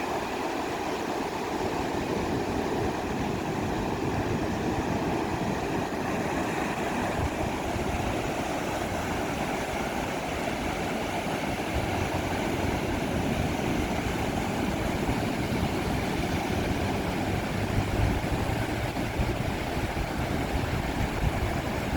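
Ocean surf on a sandy beach: a steady rushing wash of breaking waves, with a low rumble that swells briefly near the end.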